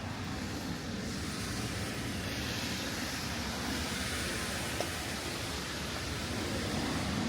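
Steady rain hiss mixed with the wash of car tyres on a wet street, swelling slightly a few seconds in.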